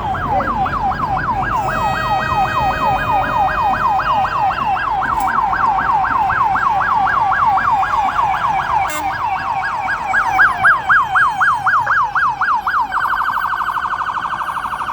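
Electronic emergency-vehicle siren on a fast yelp, rising and falling about four times a second. Near the end it switches to a much faster warble, then cuts off. A steady second tone sounds alongside it through the first half.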